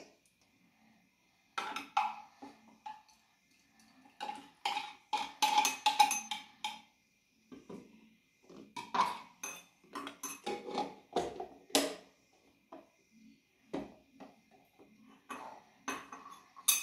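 Metal spoon scraping pulp out of halved passion fruits and clinking against a glass bowl, in irregular bunches of scrapes and knocks with short pauses between.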